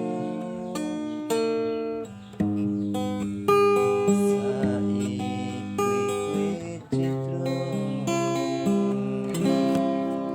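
Acoustic guitar playing chords, each struck sharply and left to ring, with the chord changing about every second.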